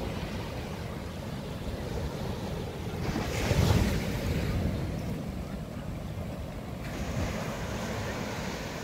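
Ocean surf washing onto a sandy beach and breaking against rocks, a steady wash with one wave breaking louder about three and a half seconds in. Wind rumbles on the microphone underneath.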